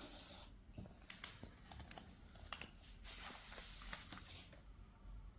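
A tablet's cardboard and plastic packaging being handled: light clicks and taps, with a rustling, peeling scrape right at the start and a longer one about three seconds in.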